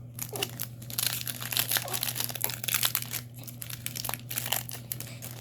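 Trading card booster pack wrappers crinkling continuously as they are handled and opened.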